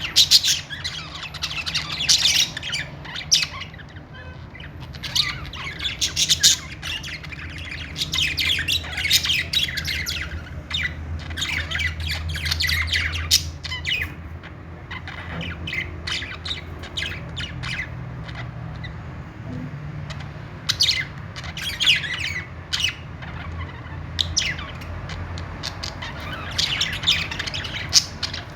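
A group of pet budgerigars chattering, with rapid chirps and squawks in clusters that come and go, over a low steady hum.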